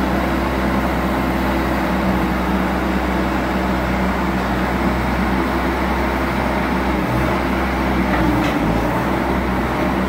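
Bobcat S205 skid steer loader's diesel engine running steadily as the machine works.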